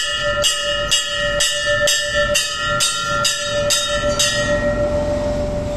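Hanging temple bell struck about ten times at about two strikes a second, its ringing tones carrying on and fading away after the last strike.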